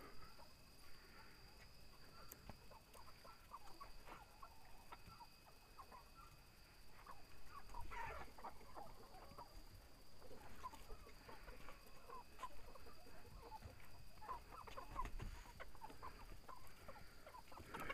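A flock of hens clucking softly in scattered short runs, busier about halfway through and again near the end.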